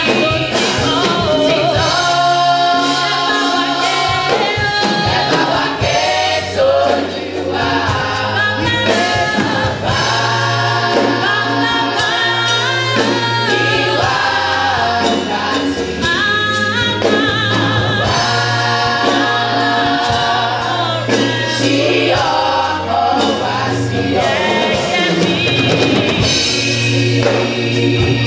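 Youth gospel choir of young women singing in several parts through microphones, over a steady low bass line and drum hits.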